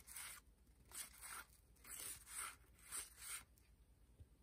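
1987 Fleer cardboard baseball cards being slid off a stack one by one. Each card gives a faint, short swish of card rubbing on card, about two a second.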